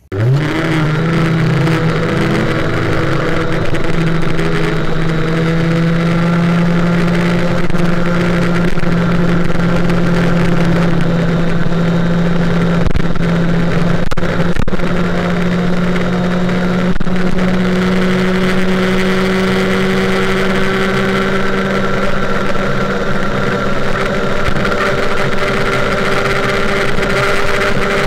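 Two-stroke 50cc Bidalot G2RR moped engine on a Giannelli Sport expansion exhaust at full throttle. The revs shoot up at the start, then hold almost steady and creep slowly higher as the moped accelerates towards about 100 km/h.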